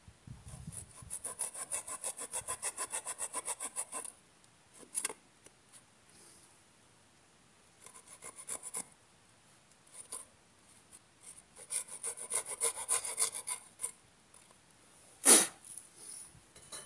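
Saw teeth on the back of a bushcraft knife sawing a wooden post flush, in quick short strokes of about seven a second, in three spells. One sharp knock about 15 seconds in.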